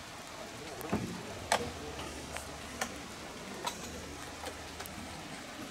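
A scatter of sharp clicks and knocks, about seven, irregularly spaced, over a faint low hum.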